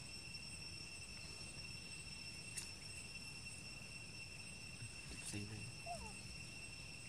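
Steady insect chorus in the undergrowth, several high even pitches held throughout, with a couple of faint clicks and a brief faint squeak about six seconds in.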